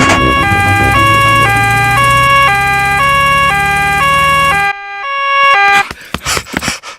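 Cartoon emergency-vehicle siren on the doctor's car, a two-tone nee-naw alternating high and low about every half second over a low engine hum. The hum stops just before the siren cuts off, and a few short clicks follow near the end.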